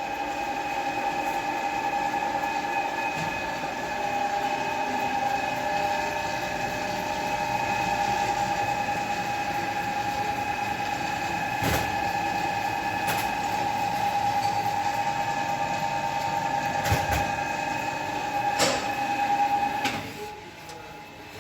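Service-station machinery running with a steady high whine and a few sharp clicks, stopping abruptly near the end.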